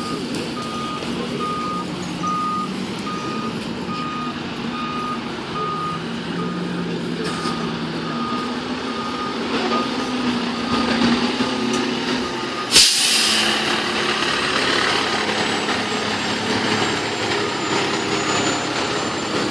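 Fire department ladder truck backing up: its reversing alarm beeps steadily, a little over twice a second, over the running engine, and stops about ten seconds in. About 13 seconds in, the air brakes let out one sharp, loud hiss.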